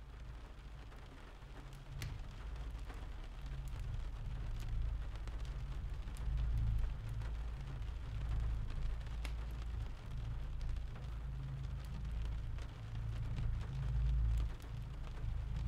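Rain-and-thunderstorm ambience: steady rain hiss with a low, rolling rumble of thunder underneath and a few sharp drop clicks. It fades in over the first few seconds.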